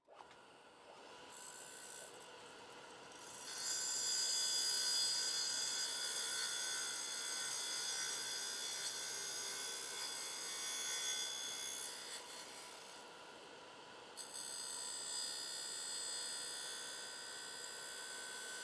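Clarkson Mk1 tool and cutter grinder's wheel grinding the steel selector dogs of a gearbox: a steady, high-pitched grinding hiss that grows louder about three and a half seconds in, eases off around twelve seconds, and picks up again about fourteen seconds in.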